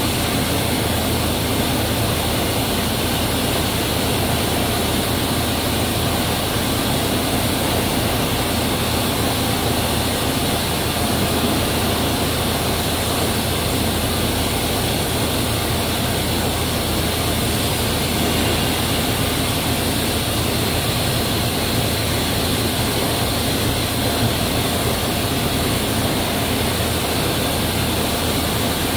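Bread-dough production line running, with the large dough divider, the inclined dough conveyor and their motors giving a steady, unchanging mechanical drone with a low hum underneath.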